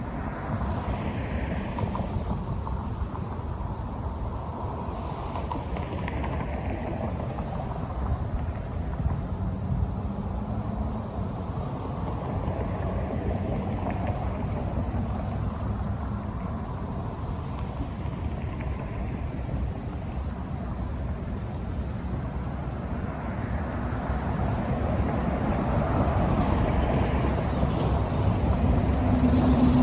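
Outdoor rumble of wind on the microphone and road traffic, growing louder near the end as a vehicle approaches.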